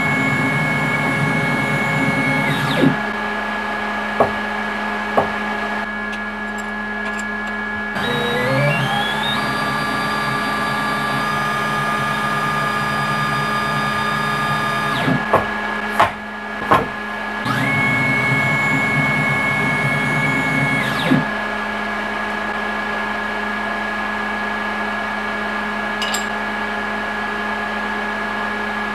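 CNC milling machine running, its axis motors whining as the table moves: the pitch climbs as one axis speeds up about eight seconds in, then holds, under a steady hum. A few short knocks come in between.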